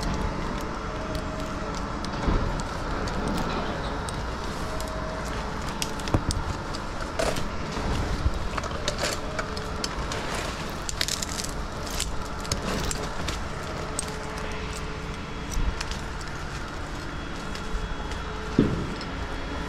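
A crane's engine running steadily, with scattered sharp knocks through it, the loudest near the end.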